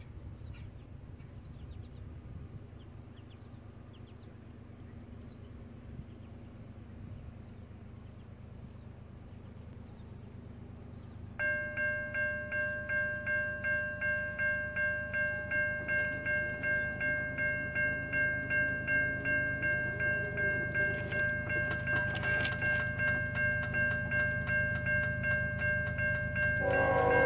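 Railroad crossing's Siemens electronic bell starts ringing about a third of the way in and keeps up a steady ding at about two strikes a second as the crossing signals activate, over a low steady rumble. Right at the end a train horn starts sounding.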